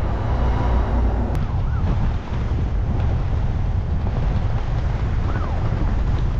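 Strong wind buffeting the microphone, a steady low rumble with no letup.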